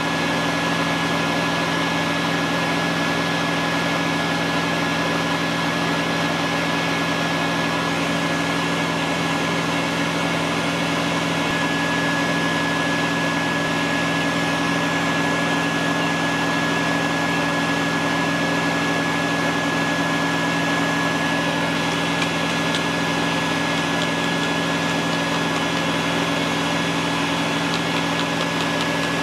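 Wet/dry shop vacuum motor running steadily to power a bee vacuum, drawing live honeybees up a hose into a collection box. It is a constant motor drone with a steady whine.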